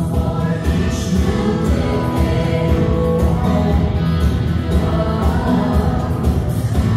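Recorded Christian song playing loudly: voices singing over instrumental backing with a steady beat.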